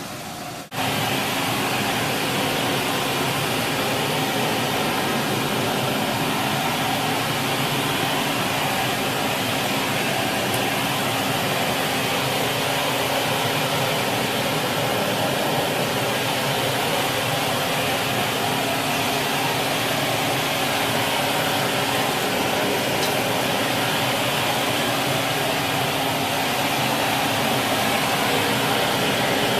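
Vintage Sterilaire canister vacuum cleaner, a relabeled 1950s Eureka Roto-Matic with a Lamb electric motor, running steadily; the rush of air through it is louder than the motor. About a second in the sound jumps louder and then holds steady.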